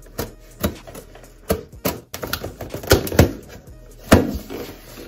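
Scissors snipping and slicing through packing tape on a cardboard box, then the cardboard flaps being handled and pulled open: a series of irregular sharp snips, clicks and crackles, the loudest about four seconds in. Music plays underneath.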